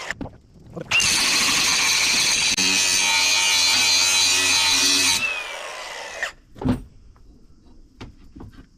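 Electric grinder sharpening a mower blade. It stops briefly at the start, spins back up about a second in and runs steadily, then is switched off about five seconds in and winds down with a falling whine. A few light clicks and knocks follow.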